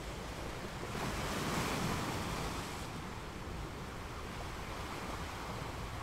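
A steady rushing wash of sea surf, swelling louder and brighter about a second in and easing back down by three seconds.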